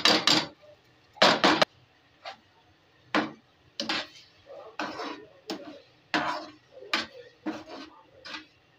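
Plastic slotted spatula scraping and knocking against a non-stick frying pan while stirring thick tomato paste into chicken liver, in irregular strokes. The loudest strokes come in two quick clusters in the first couple of seconds, then single strokes follow about every half second to second.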